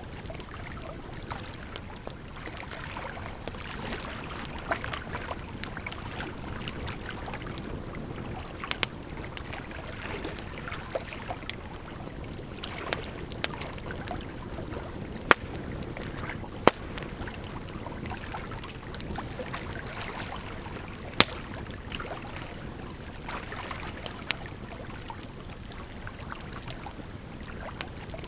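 Firewood burning with a steady crackle and a handful of sharper pops, over a continuous rush of flowing water.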